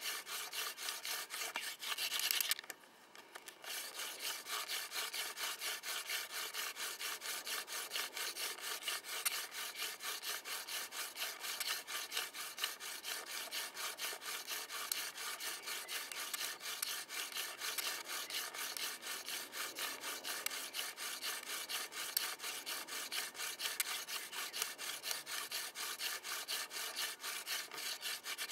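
Hand-drill friction fire: a mullein spindle spun back and forth between the palms, rasping in its socket on a spruce hearth board in a fast, even rhythm. The strokes stop briefly about three seconds in, then run on steadily.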